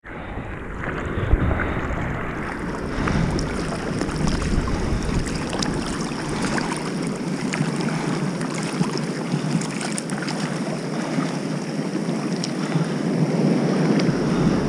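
Sea water sloshing and splashing around a camera at the surface, with small drips and splashes ticking over a steady wash, surf breaking and wind buffeting the microphone. A heavier low rumble in the first few seconds.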